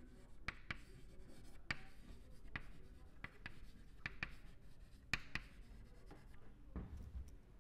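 Chalk writing on a chalkboard: a string of irregular sharp taps and short scrapes as the chalk strokes out letters.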